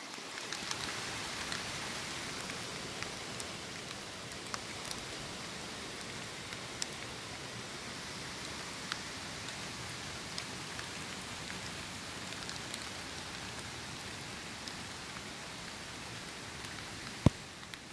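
Steady hiss of rain mixed with slushy hail, with scattered light ticks as drops and slush balls land. One sharp click near the end.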